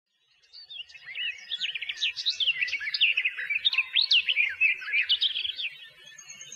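Several songbirds chirping and warbling at once, fading in over the first second, with a dense tangle of quick, high, overlapping calls.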